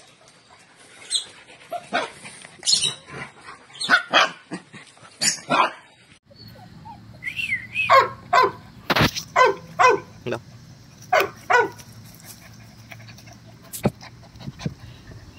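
Puppies yipping and barking in short, high bursts. About six seconds in there is a brief whine, then a run of sharp yaps as the puppies play-fight.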